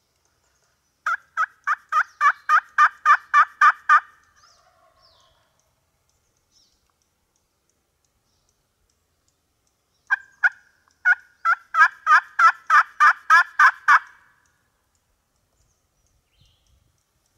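Turkey yelping: a run of about a dozen loud, evenly spaced yelps, about four a second, then after a pause another run that opens with two single yelps.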